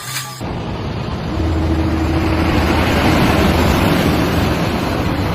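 A steady rushing noise with a low machine hum that sets in about a second in.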